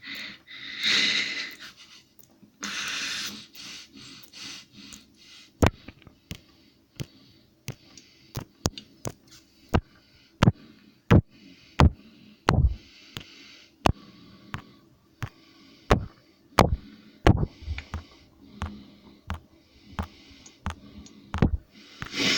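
A leaking kitchen tap dripping steadily, each drop a sharp plink, about two a second, a fault left unrepaired for a long time. A couple of short hissing sounds come in the first few seconds.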